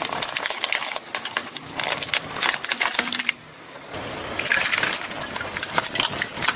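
A car tyre rolling over and crushing brittle objects: a dense run of cracks, snaps and clinks, easing off briefly about three seconds in, then crackling again.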